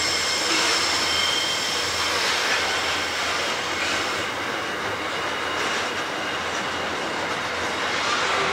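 Grain hopper wagons rolling past at steady speed, wheels running on the rails with a continuous rumbling clatter. A thin high-pitched wheel squeal sounds over it in the first couple of seconds, then fades.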